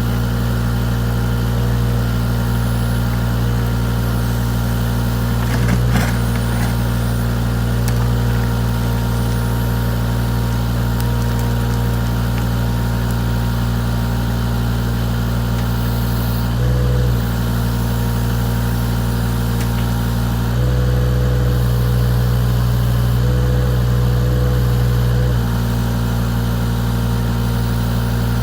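Avant 423 compact loader's diesel engine running steadily. Its note changes twice, briefly just after halfway and again for about five seconds near the end, and there is a short knock about six seconds in.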